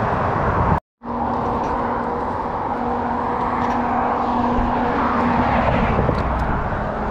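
Road traffic passing close by: a steady rush of car tyres and engines that swells a little in the middle. The sound drops out completely for a moment just under a second in.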